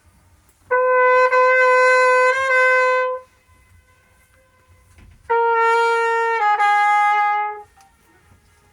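Brass horn sounded for the Königssee echo demonstration: two short phrases of held notes with a pause of about two seconds between them. The second phrase steps down in pitch near its end.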